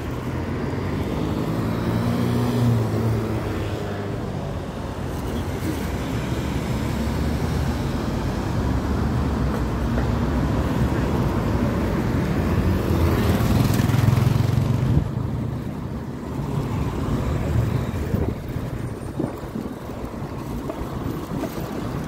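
Road traffic going by on a street, with wind rumbling on the phone microphone. A vehicle grows louder and passes about fourteen seconds in, then the noise drops away.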